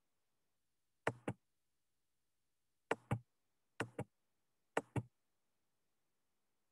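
Computer mouse clicking four times, each a quick pair of sharp clicks about a fifth of a second apart, as slides are clicked through; silent in between.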